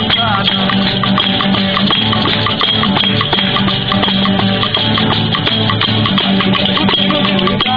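Background music with a steady beat carried by shaken percussion, in a Latin dance style.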